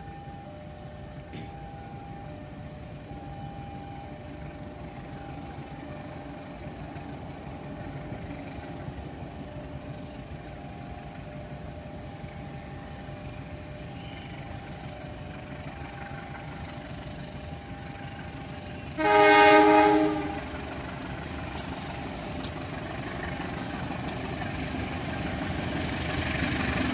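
CC 201 diesel-electric locomotive approaching with a container freight train, its rumble growing steadily louder as it nears. About two-thirds of the way through it sounds one loud horn blast lasting about a second, the loudest sound here.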